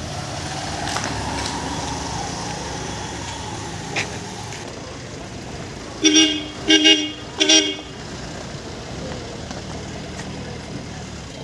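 Vehicle horn honking three short times in quick succession, over steady street traffic noise.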